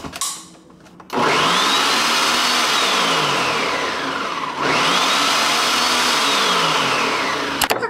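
Ninja blender running on its Smoothie program, blending a thin pie batter. The motor starts about a second in and speeds up and slows down twice, its whine rising and falling each time, then stops with a click just before the end.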